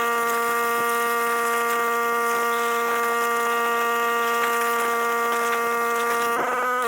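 A steady buzzing hum at one fixed pitch, holding at a constant level throughout.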